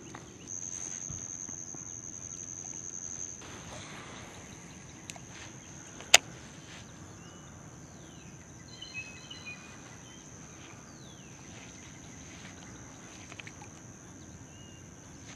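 Insects trilling steadily in a high pitch, loudest in the first few seconds, with a few short bird chirps in the middle. A single sharp click about six seconds in stands out above the rest.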